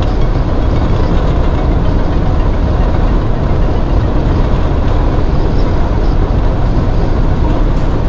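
Steady road, tyre and engine noise heard inside the cabin of a Ford Crown Victoria Police Interceptor cruising at highway speed.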